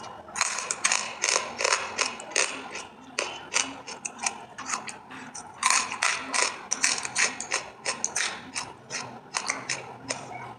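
Eating crunches: something hard and brittle bitten and chewed in rapid, crisp crunches, about three a second, with some louder cracks.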